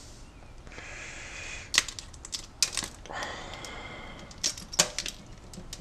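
Eggshell cracking and crunching as fingers break and pick apart an unhatched goose egg over a stainless steel sink: a scattered series of sharp clicks, with softer scratchy noise between them.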